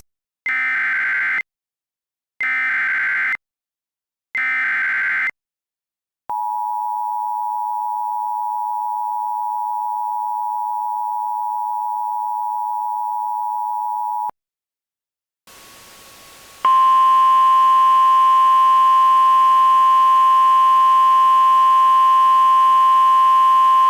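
Emergency Alert System SAME header: three short bursts of screechy digital data warble, followed by the EAS attention signal, a steady two-tone chord held for about eight seconds. After a short gap with a faint hum, a louder, buzzy single tone with many overtones starts, pitched like the NOAA Weather Radio 1050 Hz warning alarm.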